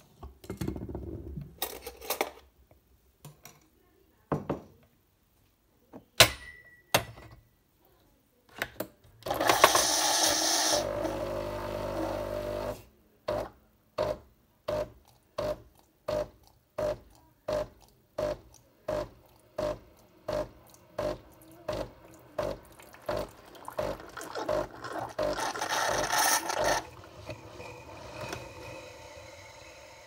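Nespresso Lattissima Pro capsule machine pumping water into a glass jug. After a few knocks and clicks, the pump runs steadily for about three seconds, then pulses in short regular strokes, about three every two seconds. Another steady stretch follows, then a fading hiss.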